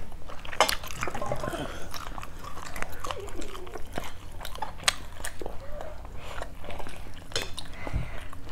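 Close-miked eating: mouth sounds of chewing food, with scattered light clicks of chopsticks and a fork against bowls and plates.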